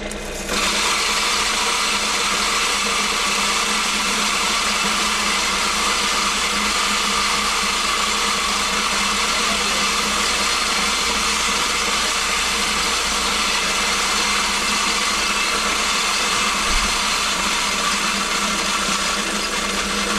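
Electric feed grinder running and grinding dried corn: a loud, steady grinding whir over a constant motor hum. The grinding noise comes in sharply about half a second in, as the feed slider opens and corn starts going through.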